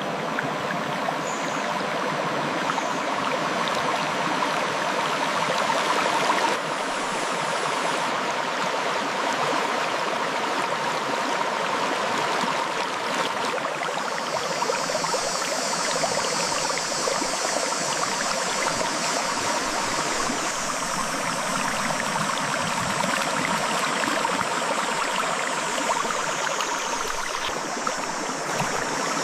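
River water flowing steadily over and between rocks. A higher hiss joins the flow from about halfway through until near the end.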